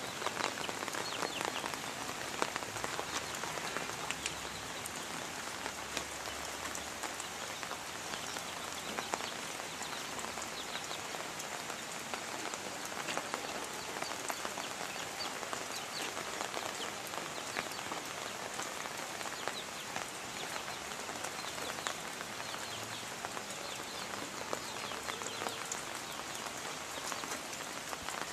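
Steady rain falling, a dense even hiss with many small drop ticks throughout.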